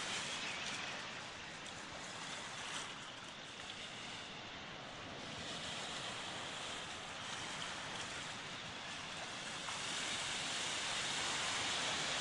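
Steady rushing wash of ocean surf, growing slightly louder near the end.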